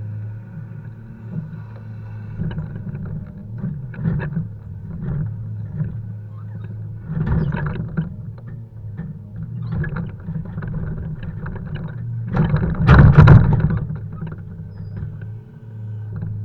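Volvo FH 520 logging truck's engine running steadily while poplar logs are unloaded, with several bursts of knocking and rumbling thuds from the logs; the loudest comes about three-quarters of the way through.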